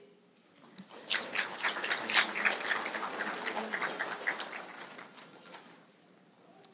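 Audience applause that starts about a second in, swells and then fades away a few seconds later.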